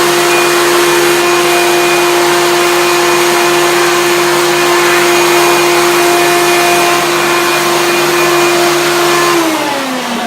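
Hoover Turbopower 1 Freedom vacuum cleaner running with a steady motor whine. About nine seconds in it is switched off and the motor winds down, its pitch falling.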